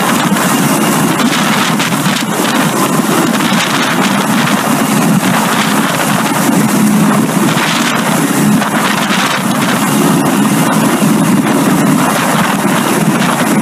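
Firefighting helicopter hovering close and low, its rotor and engines running loud and steady, with a faint high turbine whine above the rotor noise and rotor downwash buffeting the microphone.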